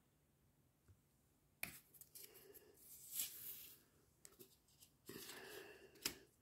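Paper card being handled and laid down on a wooden floor: rustling and scraping, with a sharp knock about a second and a half in and another near the end.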